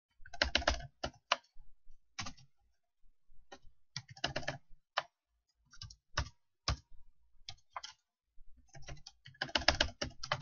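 Typing on a computer keyboard: quick clusters of key clicks in short bursts with pauses between them, ending in a denser run of keystrokes, as formulas and shortcuts are entered into a spreadsheet.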